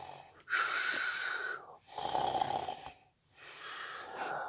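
A person imitating snoring: three long, breathy snores of about a second each, with short pauses between.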